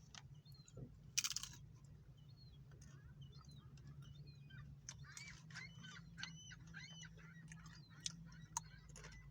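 Birds calling in many short chirps and squeals over a steady low hum, with a brief crunching noise about a second in.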